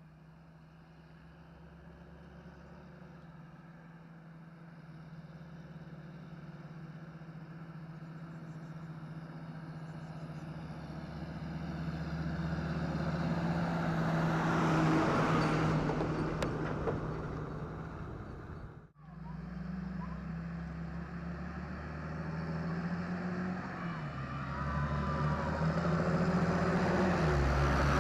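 John Deere 8430 tractor's six-cylinder diesel engine running steadily as it draws closer, loudest about halfway through and then easing off. After a brief break in the sound it grows louder again, and the engine note drops in pitch twice near the end.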